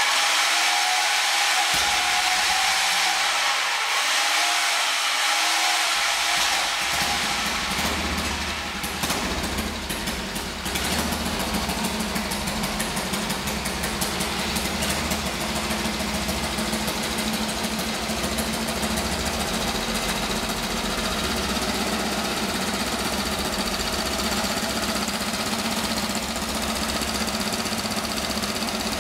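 1938 AJS 38/22 racer's 350cc single-cylinder overhead-valve engine, burning methanol, being started on an electric roller starter under the rear wheel and running. About seven seconds in its beat deepens and settles into a steady, uneven single-cylinder run.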